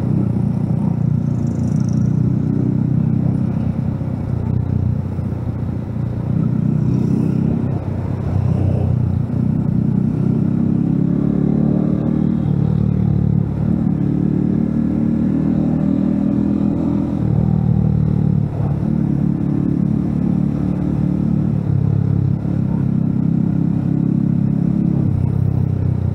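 Small motorcycle engine running while riding at a steady low speed, heard from on the bike. Its note eases off and picks up again every few seconds as the throttle is rolled off and on.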